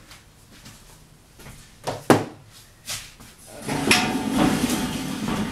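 Two sharp knocks about a second apart, then about two seconds of scraping as a drawer slides.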